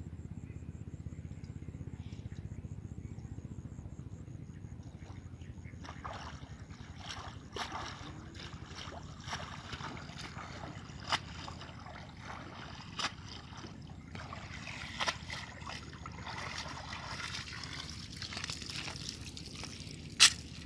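Water splashing and dripping as a cast net is gathered and hauled up out of shallow water, starting about six seconds in, with many small sharp splashes over a low steady rumble. A single sharp knock comes near the end.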